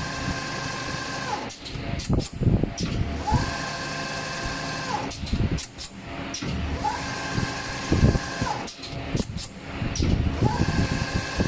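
Automatic armature winding machine cycling: its motor whine rises, holds for about a second and a half, then falls away, with clicks and knocks between runs. The cycle repeats about every three and a half seconds, three times.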